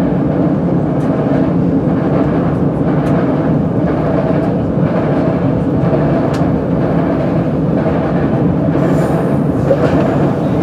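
Electric commuter trains in a station: a loud, steady rumble with motor hum as a Keihin-Tohoku Line train pulls out from the next platform.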